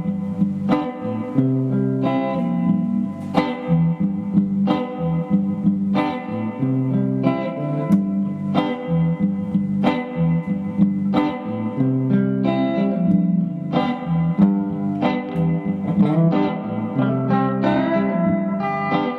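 Electric guitar played through a Vox AC10C1 valve combo amp, picked notes and chords, each attack ringing out before the next, about one or two a second.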